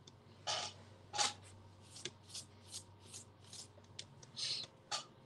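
A run of short, soft rustling scrapes, about two or three a second, with two stronger ones in the first second and a last one near the end.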